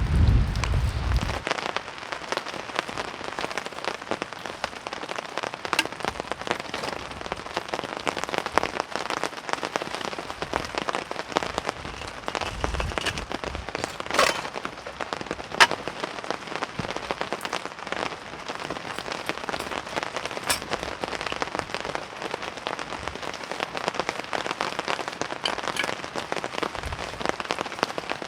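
Heavy rain falling steadily, many drops striking close by, with a few louder single drops. A low wind rumble on the microphone dies away about a second in.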